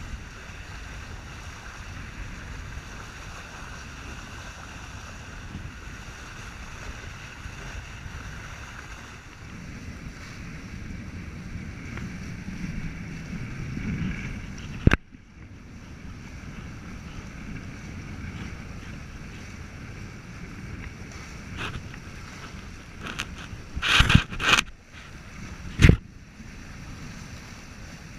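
Wind buffeting the microphone and water rushing past the hulls of a Prindle 18.2 catamaran sailing fast, in a steady rush of noise. A sharp click comes about halfway through, and a few loud thumps come near the end.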